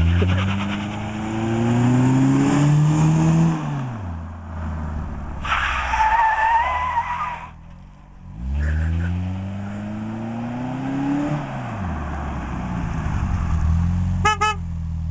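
2008 Chevrolet Cobalt's engine revved hard twice, each run climbing in pitch for a few seconds before dropping off. Between the runs the tires squeal in a wavering screech for about two seconds. The car then runs steadily past close by, with a brief stuttering beep near the end.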